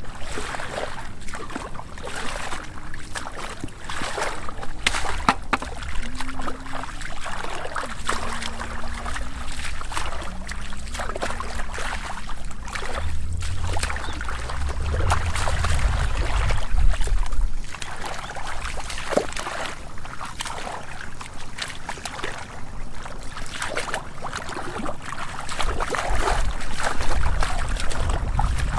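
Shallow muddy water splashing and sloshing in irregular strokes as hands grope through the mud and water and legs wade through it.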